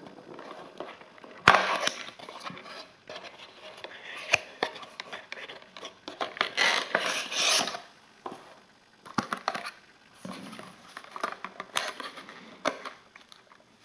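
A small cardboard box being opened by hand and a clear plastic blister pack slid out of it: rustling cardboard and plastic with scattered clicks. A sharp snap comes about a second and a half in, and a longer rustle about halfway through.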